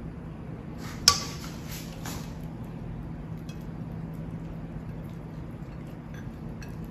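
Cabbage leaves stuffed with kefta being rolled by hand on a china plate: a sharp clink against the plate about a second in, then soft rustling and a few light ticks, over a steady low hum.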